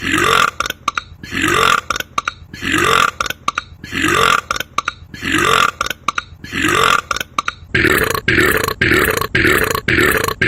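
A man burping over and over, about one burp a second, each rising in pitch, speeding up to about two a second near the end.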